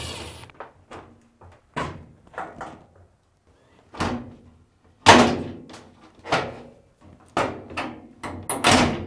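Samsung top-load washer's plastic top panel knocking and clunking against the cabinet as it is worked loose by hand: about ten separate sharp knocks, the loudest about five seconds in. Just before them, a cordless drill's whir stops about half a second in.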